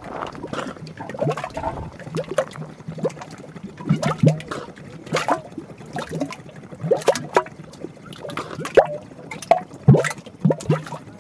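Mud volcano bubbling: gas breaks up through wet mud in irregular plops and gurgles, several a second, each pop with a quick sweep in pitch.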